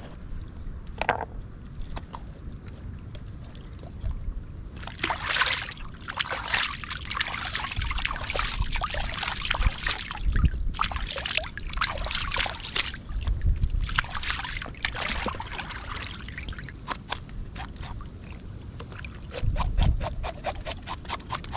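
Water splashing and sloshing as a fish is rinsed and worked by hand in a shallow stream, over the trickle of the running water. There are a few low thumps along the way and a run of quick clicks near the end.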